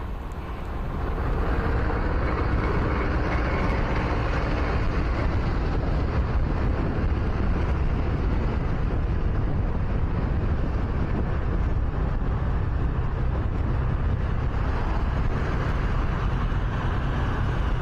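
Motorcycle riding through city traffic: steady engine and road noise with wind rumbling on the microphone, getting louder about a second in and then holding level.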